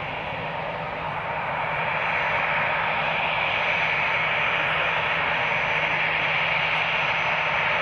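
Jet airliner engines: a steady noise that grows louder about two seconds in and then holds.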